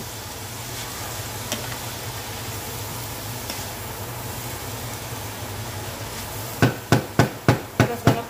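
Shredded cabbage and peppers sizzling gently in a stainless steel skillet while being stirred with a wooden spoon. Near the end, a quick run of about seven sharp knocks, roughly three or four a second, as the wooden spoon is tapped against the pan's rim.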